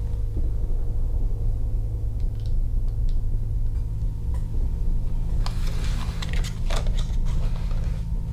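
Steady low rumble of room tone with a faint even hum. A short cluster of light knocks and rustles comes about five and a half to seven seconds in.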